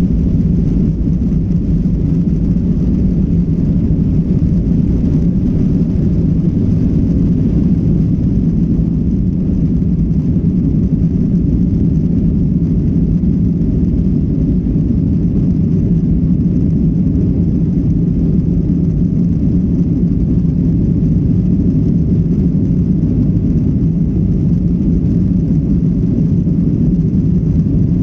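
Airliner's jet engines running, heard as a steady low rumble that neither rises nor falls.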